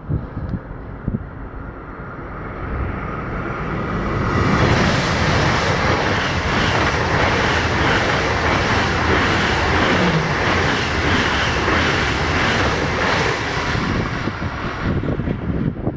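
Deutsche Bahn ICE high-speed train passing through the station at speed without stopping. Rushing wheel and air noise builds over the first few seconds, holds loud with a regular clatter of wheelsets, then drops away near the end.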